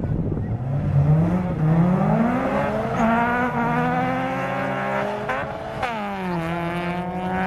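A drag-racing car's engine accelerating hard from a standing start. The revs climb steadily, drop sharply at a gear change about six seconds in, then climb again.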